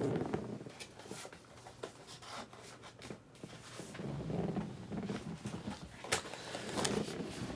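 Light handling noise: soft clicks and knocks of cardboard boxes being picked up and moved on a table, with a brief low hum about halfway through.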